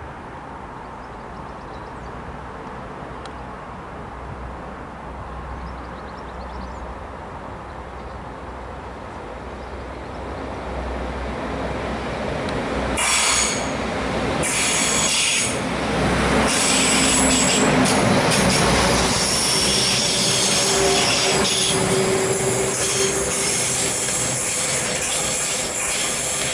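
Northern class 195 diesel multiple unit approaching and running into the station, growing steadily louder. From about halfway its wheels squeal, with high steady whines over the running noise.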